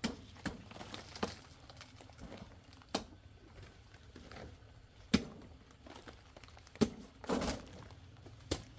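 Scattered sharp knocks and clicks, about eight at irregular intervals, with a brief rustle about seven and a half seconds in.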